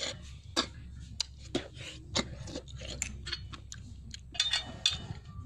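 Someone eating cooked snails: irregular sharp clicks and wet smacks of chewing, mixed with snail shells being handled on a metal plate.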